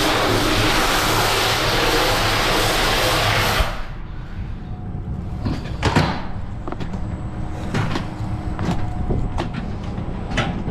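Hand-held water jet spraying hard into a stainless tanker compartment, a loud hiss that cuts off suddenly a little under four seconds in. After it, a run of separate knocks and metallic clunks on the tanker's steel top.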